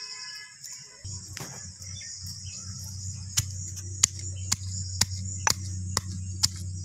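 Steady high-pitched chirring of crickets. A low rumble comes in about a second in, and from about three seconds on there are sharp clicks roughly every half second.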